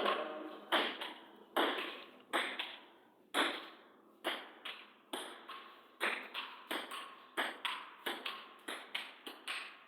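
Table tennis ball being hit back and forth in a rally: sharp clicks off bats and table, each fading quickly, at first about one a second and then faster and closer together in the second half.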